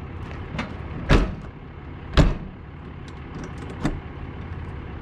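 Folding metal entry steps of a fifth-wheel RV being folded up and stowed: two loud clanks about a second apart, with a lighter knock just before them. Near the end a softer knock as the entry door is shut.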